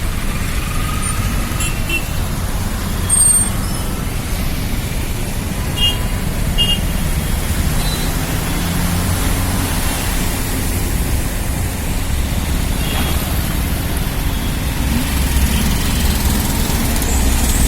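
Steady road traffic noise: vehicle engines running with a continuous low rumble, and a few short high beeps.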